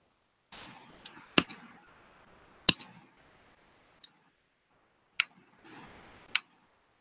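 Computer mouse clicking: several sharp, separate clicks at uneven intervals of about a second, some in close pairs, with soft rustling in between.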